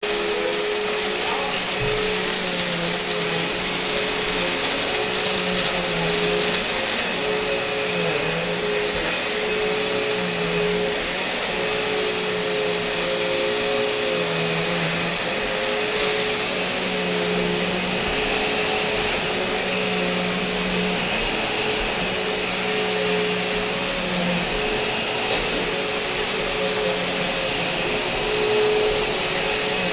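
Upright vacuum cleaner running steadily as it is pushed back and forth over a rug, its motor hum wavering a little in pitch, with a couple of brief clicks.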